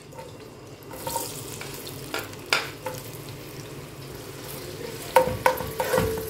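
Sliced onions sizzling in hot ghee in an aluminium pot, a steady frying hiss. A metal spoon stirs them, knocking and scraping against the pot a few times near the end.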